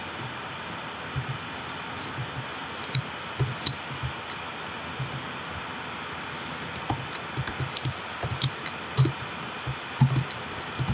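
Computer keyboard typing in irregular clicks over a steady hiss, the keystrokes coming more often in the second half.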